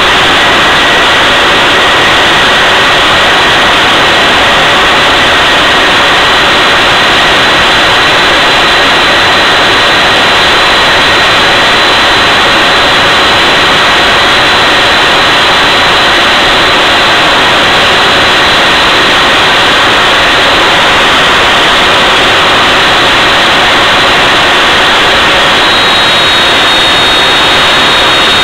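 Jet engine running steadily at full power on a thrust test, dry (without afterburner): a very loud, continuous rushing noise with a faint steady high whine in the first half.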